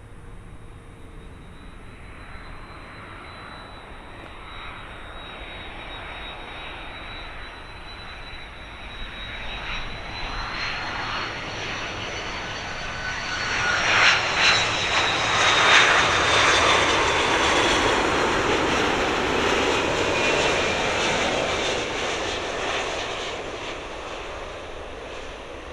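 Airbus A330-300 jet airliner on its landing approach, engine whine and rush growing louder as it comes in, loudest about two-thirds of the way through as it passes. The whine drops in pitch as it goes by, and the noise then fades away.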